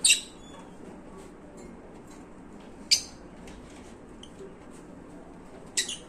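Lutino lovebirds giving short, shrill calls: three loud ones about three seconds apart, the last a quick double, with faint chirps in between.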